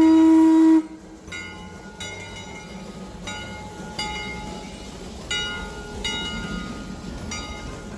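Steam locomotive whistle: one loud, steady blast that cuts off suddenly about a second in. The locomotive then runs on much more quietly as a low rumble.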